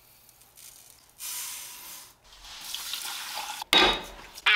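Kitchen tap running water into a sink in two short spells, then a loud clatter near the end.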